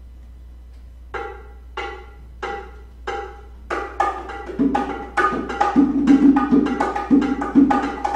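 Percussion opening a piece: four evenly spaced struck notes, each ringing briefly, then a faster, louder percussion rhythm with repeated low notes takes over about four seconds in.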